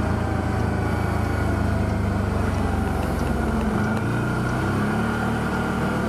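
TGB Blade 1000 ATV engine running steadily under way on a paved road. The engine note changes about four seconds in.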